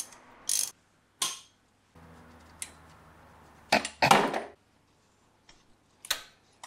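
Socket ratchet clicking on the thermostat housing bolts of an engine block, then separate short metallic clinks and knocks as the tool and parts are handled. The loudest clatter comes about four seconds in.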